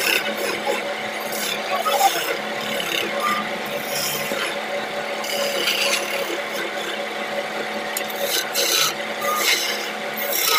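Wood lathe spinning a large wooden leg blank while a hand-held chisel scrapes and cuts into it: a steady hum under repeated rasping cuts that come and go every second or so.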